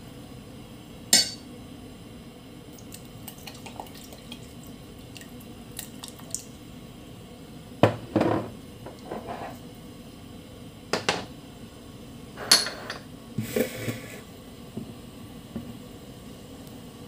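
Utensil knocking and scraping against a stainless steel saucepan as a sauce is stirred, in scattered clinks over a steady low background.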